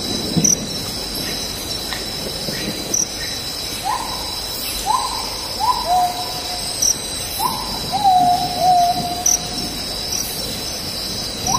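Forest insects buzzing in a steady high drone, with a bird giving a series of short hooting calls from about four seconds in, each call jumping up and then dropping to a held lower note.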